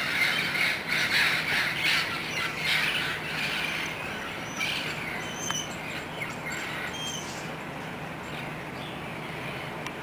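A flock of feral parrots squawking and hollering in the trees. The calls come thick and loud for the first three seconds, then thin out to scattered fainter squawks that die away after about seven seconds.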